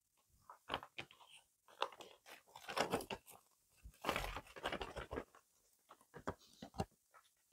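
Someone chewing a bite of homemade sushi roll, with irregular crunching in short bouts.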